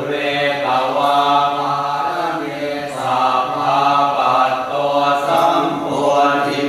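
Thai Buddhist chanting in Pali: voices reciting on a near-steady low pitch, phrase after phrase, with short breaks every couple of seconds.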